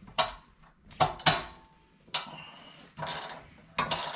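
Hand ratchet wrench clicking in several short bursts as the bracket bolts are run in and tightened.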